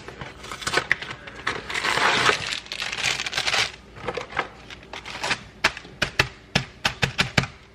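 Kitchen handling sounds while preparing brownie mix. A rustling hiss lasts about two seconds, then comes a string of sharp clicks and taps from utensils, packaging and the bowl.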